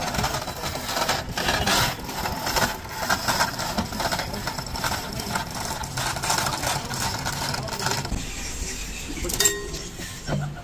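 Clanking and rattling of heavy steel dozer final-drive parts and hoist chains being shifted by hand, with one sharp metallic knock near the end.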